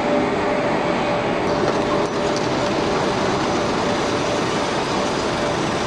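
Steel rolling mill machinery running around the bar cooling bed: a steady, loud mechanical rumble and rattle.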